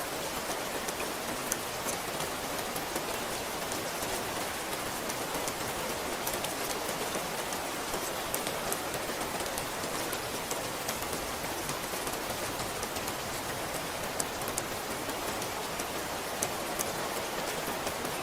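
Steady rain falling, with many individual drops ticking sharply over the even hiss.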